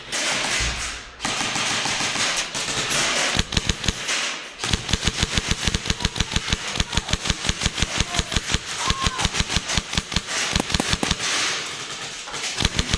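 Airsoft guns firing long, rapid strings of shots. They start a few seconds in, after a stretch of rustling noise, and run as a fast, even series of sharp cracks.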